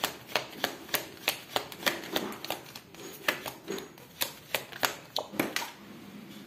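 A deck of cards being shuffled by hand, the cards snapping together in sharp clicks about three times a second, stopping about five and a half seconds in.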